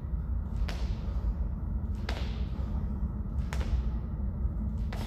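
A man lifting a pair of hex dumbbells overhead in quick reps: a short sharp sound with each rep, four of them about one and a half seconds apart, over a steady low rumble.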